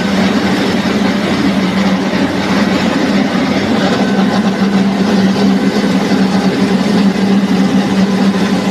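NG 25D combined rice milling machine running steadily: a loud, even mechanical noise with a constant low hum.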